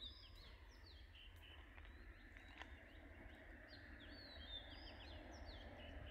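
Faint birdsong: quick runs of short, falling chirps, one run near the start and another in the second half, over a low steady rumble.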